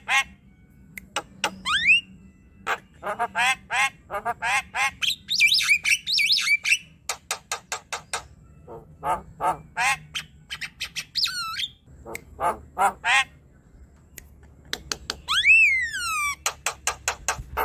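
Javan myna singing: runs of quick, harsh repeated chattering notes mixed with whistled glides, a burst of fast high warbling a few seconds in, and a long down-slurred whistle near the end.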